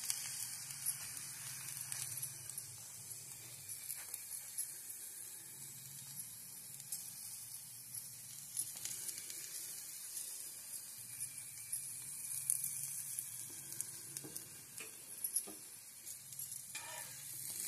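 Onion paratha frying in ghee on a hot tawa, a steady sizzle with fine crackling. A steel spoon scrapes and taps lightly across the bread as the ghee is spread.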